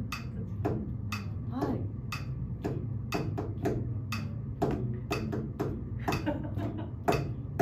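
Metronome clicking steadily, about two clicks a second, with faint voice sounds now and then.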